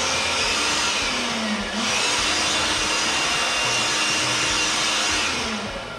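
Handheld electric blower with a narrow nozzle, running at full speed to blow drill chips off a board: a steady rushing whine. It dips briefly a little under two seconds in, spins back up, and winds down near the end.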